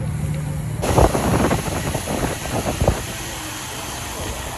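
Rushing wind and road noise during a bike ride. A louder, gusty rush starts suddenly about a second in and eases after about three seconds.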